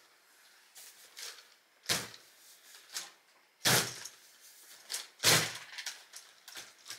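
Three dull thuds about two seconds apart, with light plastic clicks between them, from the LEGO Technic trophy truck being handled and pressed down on its suspension on the table.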